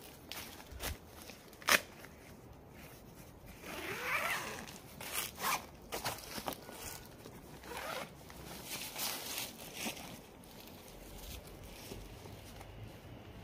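Footsteps on dry fallen leaves and grass, uneven scuffs and rustles as someone walks about, with a sharp click about two seconds in.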